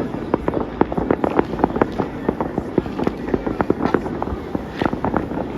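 Fireworks display heard from a distance: a dense, continuous run of rapid crackling bangs, several every second.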